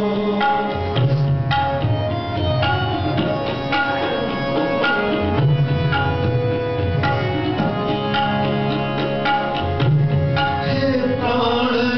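Live Sikh kirtan: tabla drumming over held harmonium notes, with deep bass drum tones coming and going.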